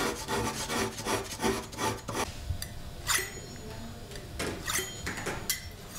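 Steel ulu blade being sharpened: quick repeated scraping strokes in the first two seconds, then slower, separate strokes as the edge is drawn along a steel honing rod.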